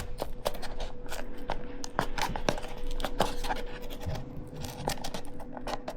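Kitchen handling noises: an irregular run of small clicks, taps and scrapes as things are worked by hand, over a faint steady hum.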